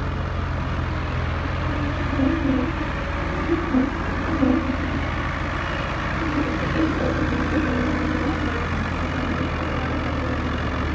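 Tractor diesel engine idling steadily with an even low hum. A few short, louder mid-pitched sounds rise over it between about two and eight seconds in.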